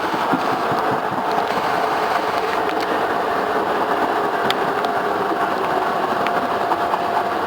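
Hankyu 5300 series resistance-controlled electric train running past at a level crossing: steady rumbling running noise with a constant tone, and a few sharp clicks.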